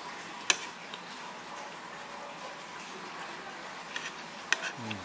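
Cutlery clicking sharply against a plate about half a second in and again near the end, over a steady restaurant background; just after the second click comes a short low sound sliding down in pitch.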